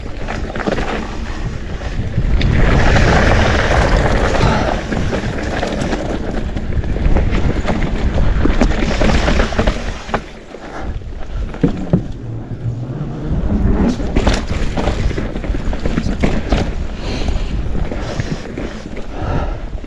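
Mountain bike riding down a loose, rocky dirt trail: wind buffeting the microphone and tyres crunching over loose dirt, with frequent sharp clatters as the bike hits bumps. The noise eases briefly about halfway through.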